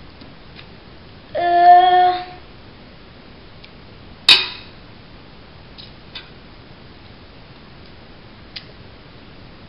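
A metal utensil clinking against a stainless steel soup pot as soup is scooped and tasted: one sharp clank about four seconds in, then a few light taps. Earlier, a short pitched vocal note lasting about a second.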